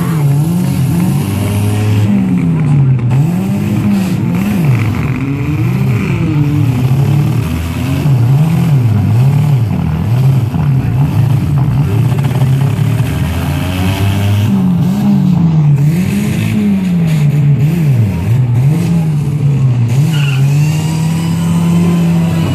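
Stock car engines revving up and down over and over as the cars race, loud throughout, the engine note climbing and dropping every second or two.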